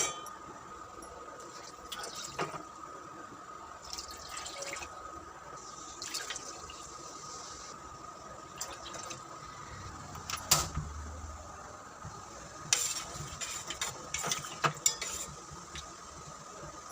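Kitchen work at the stove: water poured into a pot for a couple of seconds midway, with scattered clinks and knocks of utensils against the pot throughout, over a faint steady whine.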